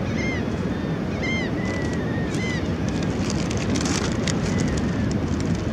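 Wind buffeting the microphone, with a bird giving short arched call notes several times in the first half. From about three seconds in, a foil-lined plastic bag crinkles as it is handled.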